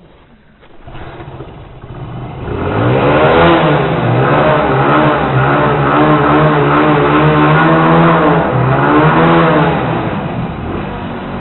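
Motorcycle engine pulling away and accelerating, coming in about a second in and loud from about three seconds. The engine note rises and falls repeatedly as it revs through the gears, then eases off near the end.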